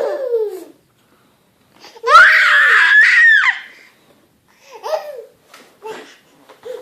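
Eleven-month-old baby squealing and laughing at a fake sneeze: a short falling laugh at the start, then a loud, high-pitched squeal about two seconds in that lasts about a second and a half, followed by a few short babbling laughs near the end.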